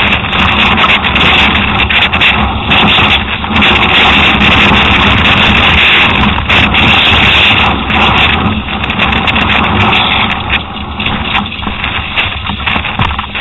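Wind buffeting an on-bike camera microphone as a downhill mountain bike runs fast over a rocky trail in strong gusts, mixed with the bike rattling over the rocks. The rush is loud and surges and dips.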